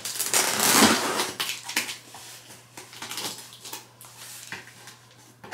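Kitchen knife slicing through packing tape on a cardboard shipping box: a loud tearing rasp for about the first second, then lighter scratches and taps of the blade along the tape and cardboard.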